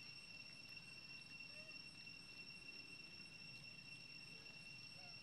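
Near silence: faint outdoor night ambience with a steady high-pitched whine and a few faint, short chirps.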